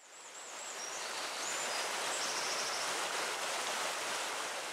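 Steady rushing-water ambience fading in, with a few faint high bird-like chirps and a short trill over the first couple of seconds.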